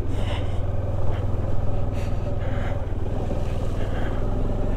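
Bajaj Dominar 400 single-cylinder motorcycle engine running steadily at low speed on a rough, wet, stony track, with a few brief crunches from the tyres.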